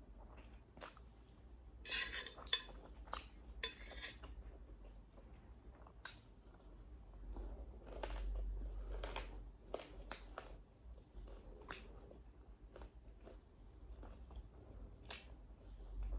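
A person chewing and biting food close to the microphone. There is a short run of crunching about two seconds in, with scattered clicks and smacks throughout.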